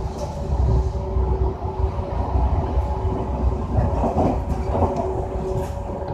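Electric passenger train running along the track, heard from inside the carriage: a continuous low rumble with a steady hum over it, and a rougher rattling stretch about four seconds in.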